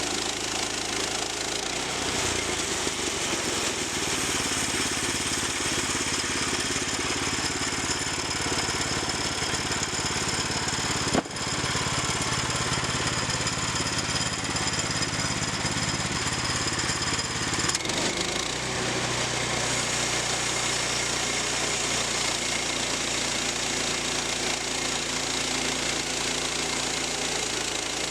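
Sawmill engine running while the saw cuts a log into planks. About two seconds in the engine note shifts and a strong hiss of the blade in the wood comes up; it stops about eighteen seconds in, when the engine settles back to a steadier running note.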